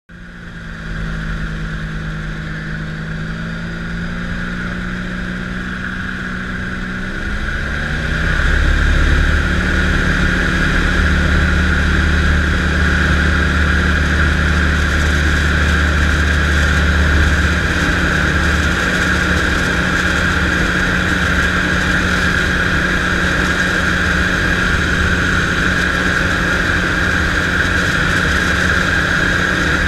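Storch light aircraft's piston engine and propeller heard from inside the cockpit: running at low power for the first several seconds, then its pitch and level rising about seven to eight seconds in as the throttle opens to full power for a short-field takeoff, holding a steady loud drone through the takeoff run and climb-out.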